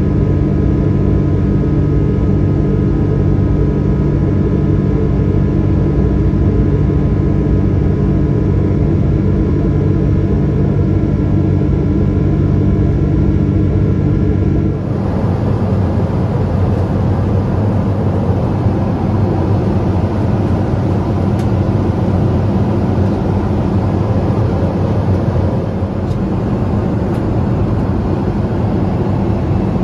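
Boeing 777-200 jet engine noise heard inside the cabin during the climb after takeoff: a steady roar carrying several steady engine tones. About halfway through it changes abruptly to an even, rushing cabin roar without the tones.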